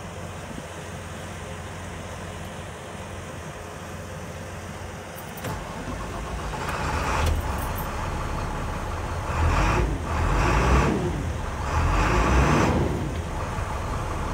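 Navistar DT diesel engine of a 2007 IC CE300 school bus being started: a click about five and a half seconds in, then the engine catches and runs, swelling louder a few times.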